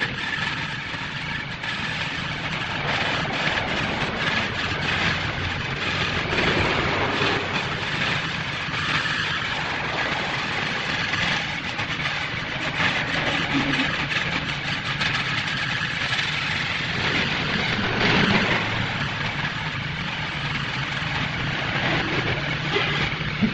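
Large wood lathe running with a steady motor hum while a hand-held turning tool cuts into the spinning wooden vase blank, a continuous scraping cut as shavings come off.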